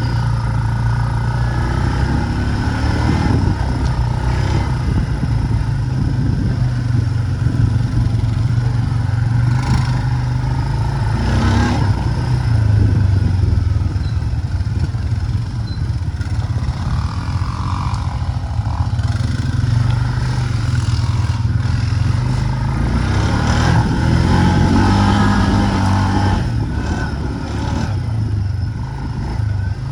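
A four-wheeler (ATV) engine running steadily while being ridden, its pitch rising and dipping a little with the throttle.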